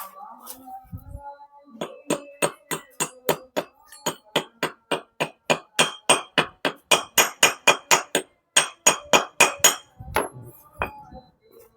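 Hammer tapping rapidly on metal, about four ringing strikes a second, starting about two seconds in and stopping near the end; it is driving a new seal into place on a Yamaha Mio J scooter.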